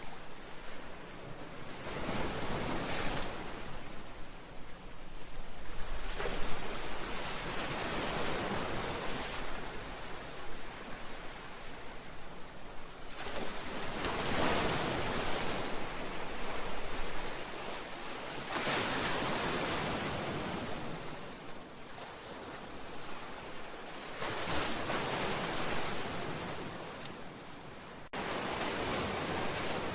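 Sea waves breaking and washing against a seawall and breakwater, the surf swelling and falling every few seconds. Near the end the sound jumps abruptly to a steadier wash.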